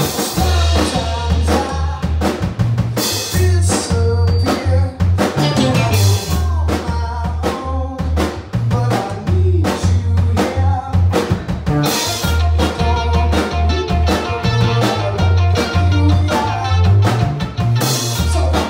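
Live rock band playing a song: two electric guitars, electric bass and a drum kit keeping a steady beat, with a man singing lead over them.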